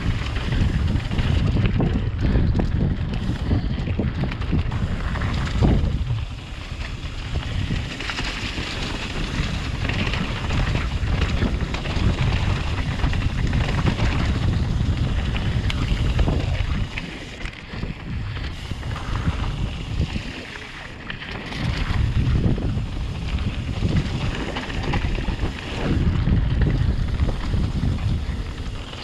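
Wind rushing over the microphone of a camera on a mountain bike riding down a dirt forest singletrack, mixed with the tyre noise of rolling over dirt, stones and dry leaves. The rush eases briefly a few times, about six seconds in and again twice after the middle.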